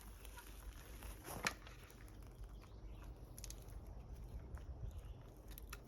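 Faint scattered clicks and light rattles, with one sharper click about a second and a half in: a thin cable lock being threaded through a trail camera's rings and locked.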